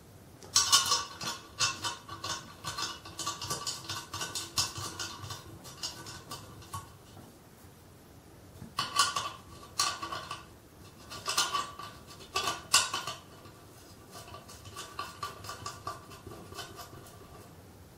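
Small metal-on-metal clicks and clinks in three bursts, the last one quieter, as methanol injection nozzles are screwed into the threaded bungs on a charge pipe and snugged down to a little more than finger tight.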